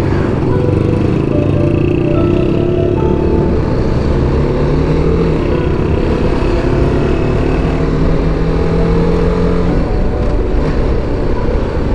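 BMW G 310 GS's single-cylinder engine running while riding, its pitch drifting gently up and down with the throttle over a steady low rumble.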